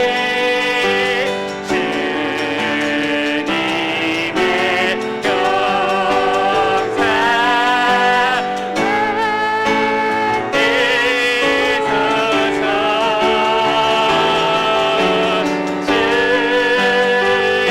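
Praise song sung by a worship team over piano accompaniment: held, wavering sung notes above steady piano chords.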